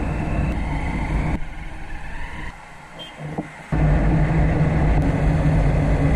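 Motorcycle engine running at a steady cruising speed with wind rushing past, in several short clips that cut abruptly from one to the next; it is loudest over the last couple of seconds.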